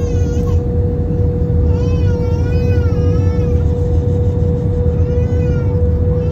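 Steady cabin rumble of an Airbus A320-232 with a constant engine hum, and a baby crying in two spells, about two seconds in and again about five seconds in.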